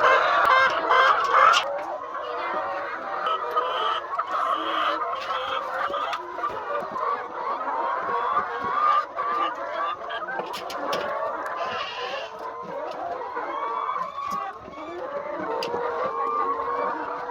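A large flock of laying hens clucking and squawking over one another in a continuous din, louder for the first second and a half.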